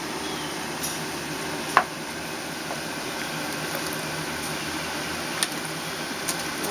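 Firecrackers going off: one sharp bang a little under two seconds in and a few fainter pops later, over a steady hiss.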